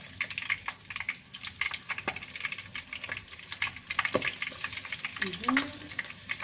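Prawn spring rolls frying in hot sunflower oil in a pan: a steady, dense crackle of sizzling and spattering.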